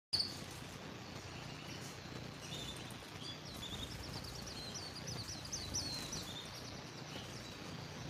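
Canary singing faintly, a quick run of short, high notes that each drop in pitch, densest in the middle, over a steady background hiss.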